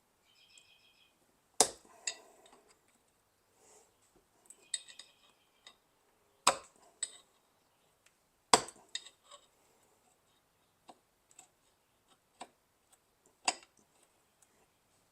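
Sharp metallic knocks and clicks, four louder ones among lighter taps, with a few short ringing clinks, as the hubcap's thin steel tabs are pushed down over a socket to lock in the trim ring.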